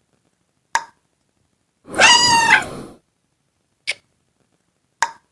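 A meme sound effect: a single high-pitched, meow-like animal call lasting about a second, falling back at the end. It is set between short, sharp clicks, one before it and two after.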